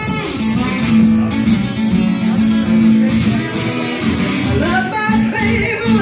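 Live acoustic blues shuffle: a steel-string acoustic guitar strums a driving rhythm, with a shaker ticking in time. A woman's singing voice comes in near the end.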